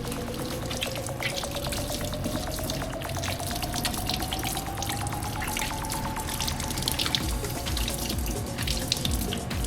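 Kitchen tap running into the sink while hands are washed under it, with scattered splashes. Through it a thin tone rises slowly for about six seconds, then holds steady.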